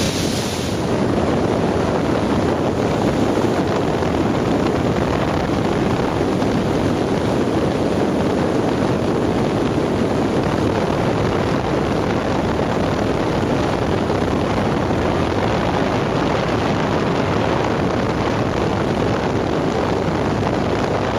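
Motorboat running at speed on open water: a steady engine drone blended with the rush of water and wind on the microphone.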